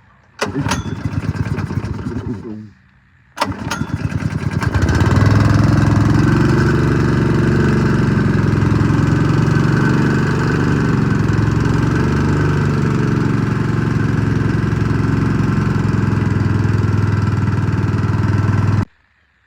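Small gasoline engine of an air compressor running, with a short break about three seconds in, then picking up again and running steadily at speed while driving the compressor pump. It cuts off abruptly shortly before the end.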